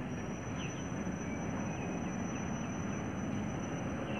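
Goods train rolling past, a steady low rumble, with a few faint bird chirps and a thin steady high whine above it.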